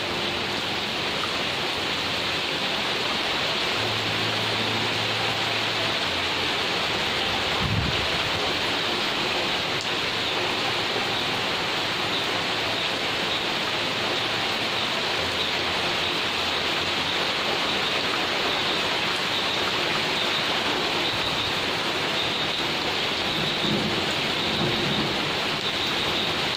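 Steady rain falling on the garden's leaves, grass and path, an even hiss that holds at the same level throughout.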